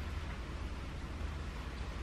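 Steady background noise: an even hiss over a low rumble, with no distinct handling sounds.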